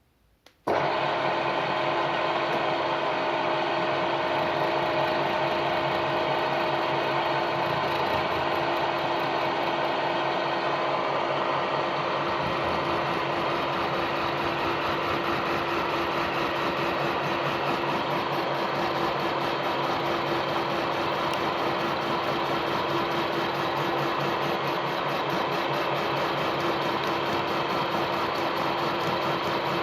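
Milling machine switched on and running steadily, its motor and gearbox giving an even mechanical hum with several steady tones; it comes in suddenly less than a second in.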